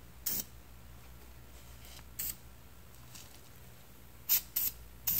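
Aerosol spray-paint can hissing in brief light puffs: five short bursts, three in quick succession near the end.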